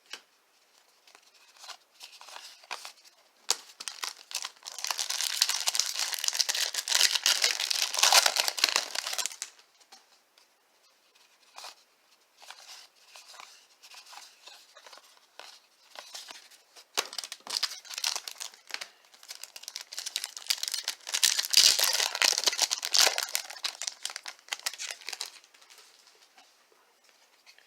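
A baseball card pack's wrapper being torn open and crinkled, in two long crackling stretches about five and seventeen seconds in, with light rustling and clicks of cards being handled between them.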